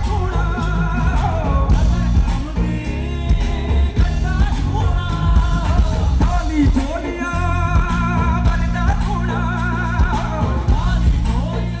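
Loud music with a singing voice over heavy bass, played through a DJ PA sound system during a sound check.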